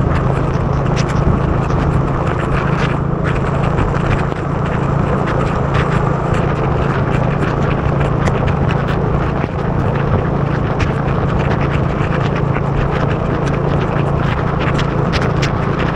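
Motorbike riding through heavy rain: a steady engine and wind drone, with many sharp ticks of raindrops hitting the camera.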